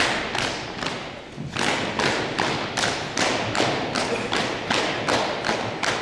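Unarmed drill team striking in unison with foot stomps and hand slaps, a steady beat of about three sharp strikes a second. Each strike echoes in a large gymnasium, with a brief lull about a second in.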